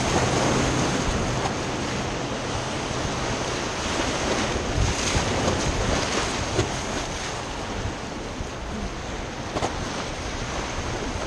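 Gallatin River whitewater rushing around a raft as a steady, dense noise of moving water.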